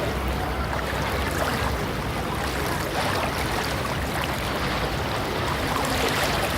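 Beach ambience: surf washing steadily, with the indistinct chatter of a light crowd of beachgoers in the background.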